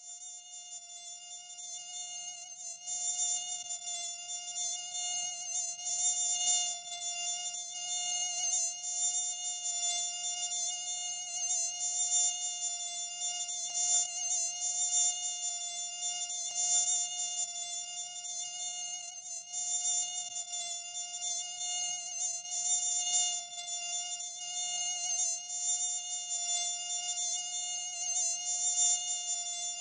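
Mosquito buzzing in flight: a continuous high-pitched whine that fades in over the first few seconds, then wavers slightly in loudness as it hovers.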